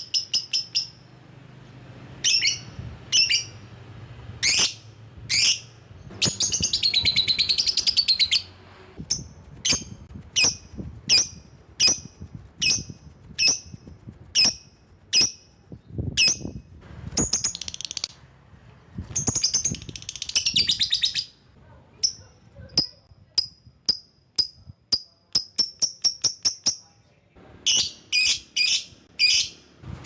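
Lovebird calling: shrill, sharp chirps repeated in uneven series, broken by two longer rapid chattering trills, one about a quarter of the way in and one about two-thirds through.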